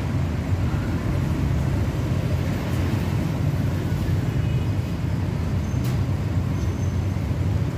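Steady low rumble of street traffic noise, with a short faint high tone about four seconds in and a single click near six seconds.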